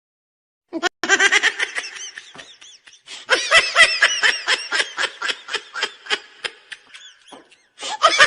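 Laughter sound effect: a person laughing in rapid, pitched ha-ha pulses, about five a second, fading out toward the end. A new laugh starts just before the end.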